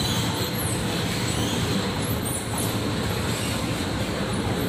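Inclined moving walkway (travelator) running: a steady mechanical rumble under the rider.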